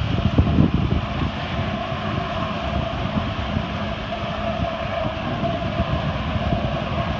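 Jet ski engine running steadily under load, pumping water up the hose to a flyboard, with the rush of the flyboard's water jets spraying down onto the lake.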